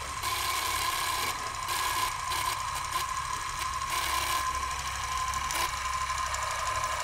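Old film projector sound effect: a steady mechanical whirring rattle with a steady high hum running through it.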